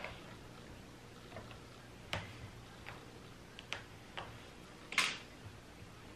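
Faint, irregular light clicks and taps, about six of them with the loudest about five seconds in, from hands stretching a mesh wig cap over a canvas block head and working the pins that hold it.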